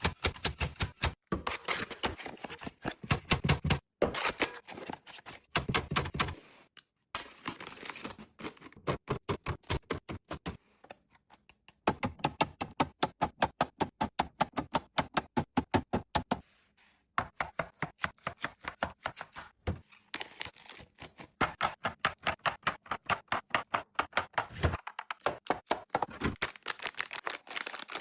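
Rapid clicking and tapping of containers and food items being handled and set down, several clicks a second, in runs broken by short pauses.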